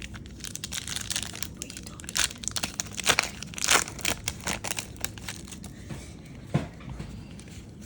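Plastic trading-card pack wrapper being torn open and crinkled by hand: irregular crackling and rustling, loudest about halfway through, that dies down after about six and a half seconds.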